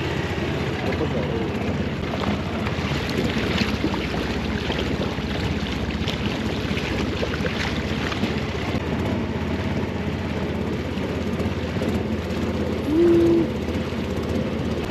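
Motorboat engine running steadily under way, with the wash of water against the hull. Near the end, a short steady tone sounds once for about half a second, louder than the engine.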